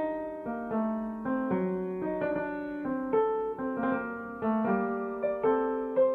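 Background piano music: a slow melody of struck notes, each fading before the next.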